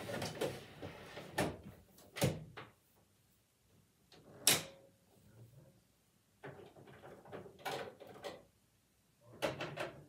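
Plastic toy dollhouse elevator handled and pushed up its shaft by hand: a series of separate plastic clunks and knocks, the loudest about four and a half seconds in, with softer rustling handling noise in between.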